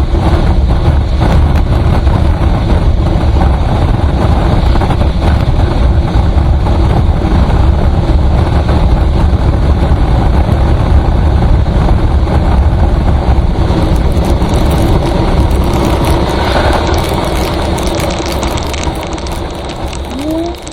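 Road vehicle travelling at speed: steady loud road and wind noise with a heavy low rumble, growing quieter over the last few seconds.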